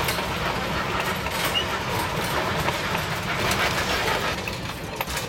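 Railroad passenger car rolling along the track, heard from on board an open car: a steady rumble of the wheels on the rails with scattered clicks.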